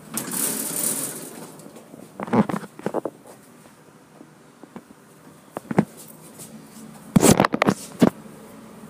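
A brief rustle at the start, then sharp knocks and clatters in short groups: a few about two seconds in, a couple near six seconds, and the loudest cluster about seven to eight seconds in.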